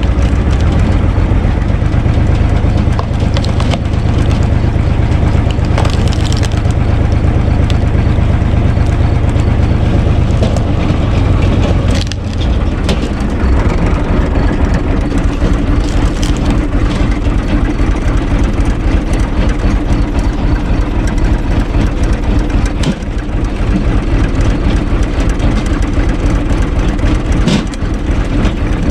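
UTB Universal 445 DT tractor's diesel engine running steadily under load, driving a log splitter, with a few sharp cracks of wood splitting.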